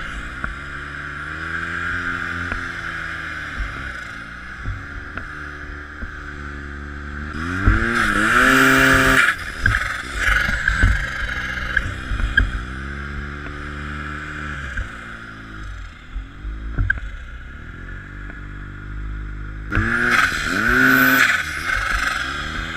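Snowmobile engine running under way, its pitch rising and falling as the throttle is worked. It revs hard twice, about eight and twenty seconds in.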